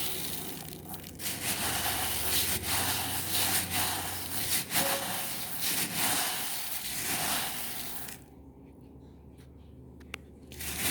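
A mass of tiny silver pearl beads being moved about, a grainy rushing hiss that swells and fades in waves. About eight seconds in it drops away to a few separate clicks, then starts again near the end.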